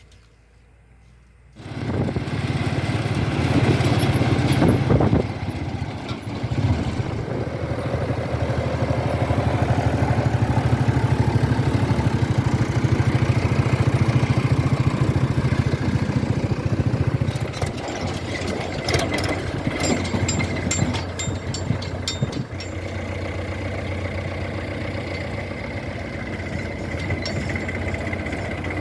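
Heavy diesel engine running steadily, coming in suddenly a little under two seconds in. Its low note drops slightly a little past halfway, with some clicking and rattling soon after.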